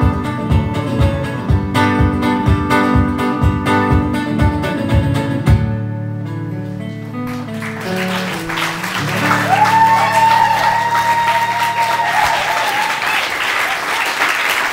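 Archtop hollow-body guitar strummed in an even rhythm, ending about six seconds in on a final chord left ringing. Audience applause builds over the ringing chord and runs on, with a long cheer from the crowd in the middle of it.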